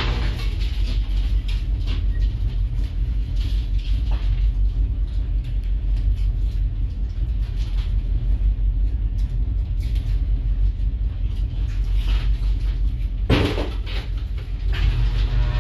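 Net lifter's motor running with a steady low hum while it winds a gillnet up through the ice onto its drum. Scattered clunks and knocks from the net and gear, with one sharp, louder knock about thirteen seconds in.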